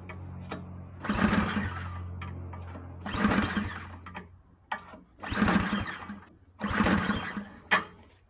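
Cold gas engine of a two-stage walk-behind snowblower cranked four times, each attempt under a second, without catching. The owner puts the failure to start down to it sitting unused for months and needing extra primer pumps.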